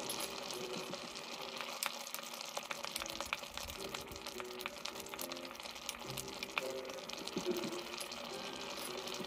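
Rice porridge bubbling at a boil in a pot, with many small pops and crackles and a wooden spatula stirring through it, over soft background music.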